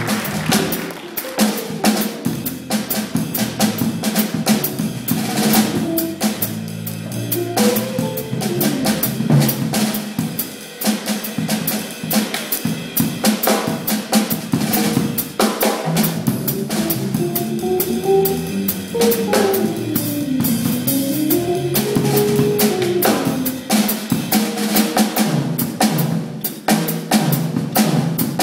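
Jazz drum kit played busily, with rapid snare, bass drum and cymbal strikes, while a double bass and an archtop electric guitar play pitched lines underneath.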